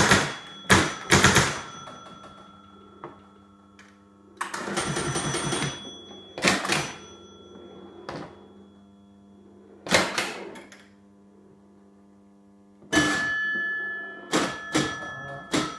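1950 Gottlieb Madison Square Gardens woodrail pinball machine in play. Bursts of mechanical clacks from flippers and relays come every few seconds, several with scoring bells ringing on after them, and there are quieter stretches between the bursts.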